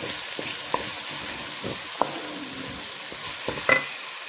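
Chopped onions sizzling in hot ghee in a kadhai while a wooden spoon stirs them, with a few sharp taps of the spoon against the pan, the loudest near the end.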